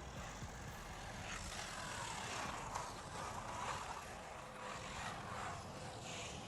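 Wltoys XKS 144001 1:14 4WD RC car's electric motor and drivetrain whining as it speeds up and slows down, the pitch rising and falling in several surges.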